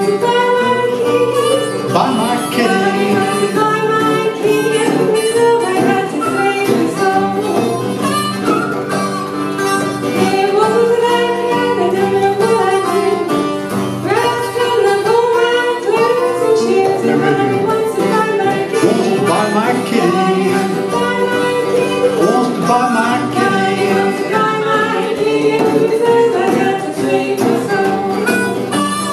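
Live acoustic blues: harmonica played into a microphone over acoustic guitar and a djembe hand drum.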